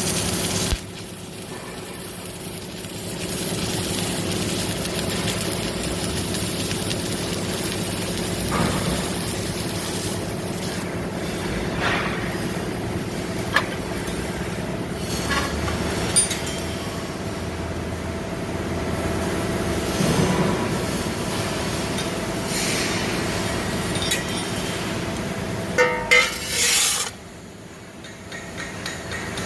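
Submerged arc welding machine running: a steady electrical hum with a constant low tone and a noise haze, broken by scattered clicks. The level dips about a second in and drops near the end.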